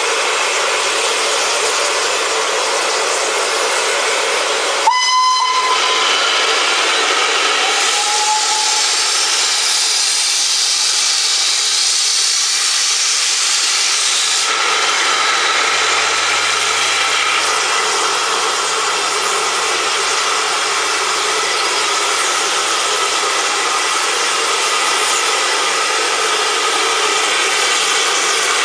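Steam locomotive standing at a platform with a steady hiss of escaping steam. A short whistle blast sounds about five seconds in, and a fainter, lower whistle follows a few seconds later.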